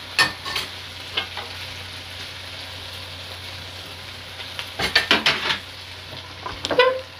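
Goat trotters frying in thick masala in a pan with a low steady sizzle, while a spoon scrapes and knocks against the pan. The strokes are scattered early on and come in a loud cluster about five seconds in. The masala is sticking to the bottom of the pan, the sign that it is fully fried and ready.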